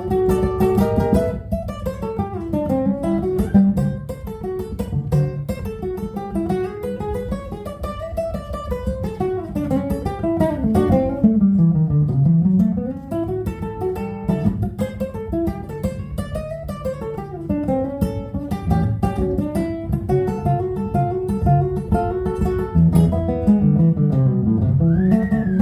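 Acoustic guitar playing an instrumental blues break, fast picked single-note runs climbing and falling over a steady bass.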